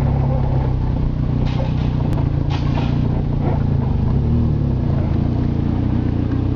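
Steady low hum of vehicle engines running at low speed as cars drive on and queue to board a car ferry, with a few faint brief noises over it.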